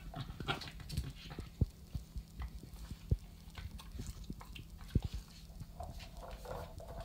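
A Shiba Inu and an American Cocker Spaniel nosing and pawing at a toy on a tile floor: scattered taps and soft knocks, a few louder ones, over scuffling and rustling.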